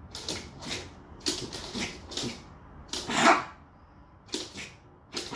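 West Highland white terriers playing, making a run of about a dozen short, sharp yaps and huffs. One louder bark comes about three seconds in.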